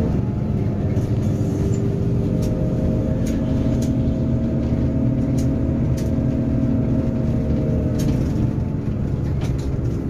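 Bus engine and road noise heard inside the driver's cab while the bus is under way: a steady drone whose pitch rises a little after about two seconds and eases slightly near the end, with a few faint clicks.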